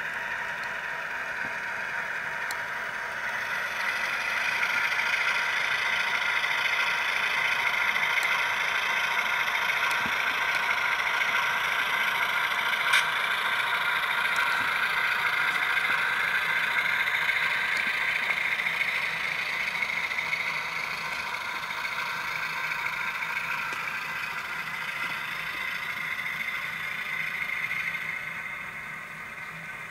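Model diesel locomotive running, its Tsunami sound decoder playing diesel engine sound through a small onboard speaker, which gives it a thin, tinny sound. It grows louder about four seconds in and eases off near the end, with a single sharp click about halfway through.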